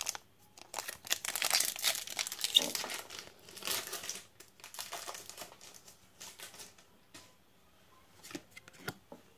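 A foil Pokémon booster pack being torn open and its wrapper crinkled, busiest in the first four seconds or so, then fainter, scattered rustling with a few small clicks near the end.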